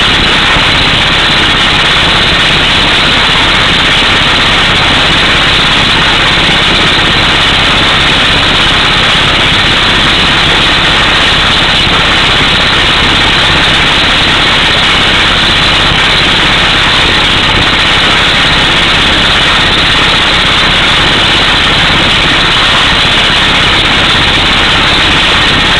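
Pneumatic air hammer drilling a power-pole hole through solid rock, with the truck's engine running under it. A loud, unbroken din that never lets up.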